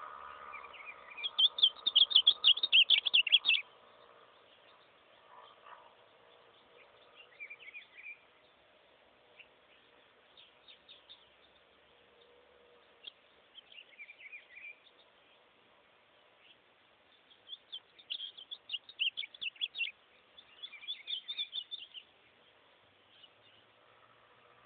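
Ultramarine grosbeak (azulão) singing in short, quick chirpy phrases: a loud one over the first few seconds, softer ones in the middle, and two more loud ones about two thirds of the way through.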